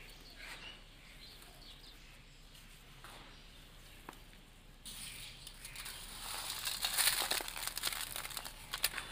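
Dry sand-and-cement powder trickling through fingers into a pile, a soft gritty hiss. About five seconds in it turns to a louder, dense crackling patter as the powder falls onto a flat metal sheet.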